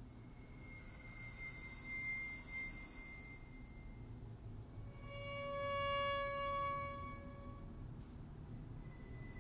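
Violin playing sparse, quiet held notes: a thin, very high tone for a few seconds, then a fuller sustained note that swells and fades, and another high tone entering near the end.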